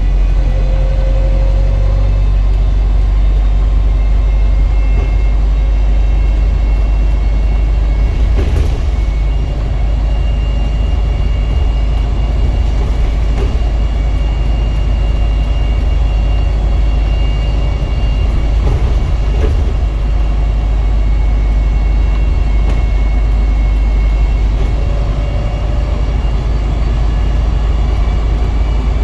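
Wright StreetDeck double-decker bus running, with a steady low rumble and thin whirring whines that drift slightly in pitch over it. There is a brief knock partway through.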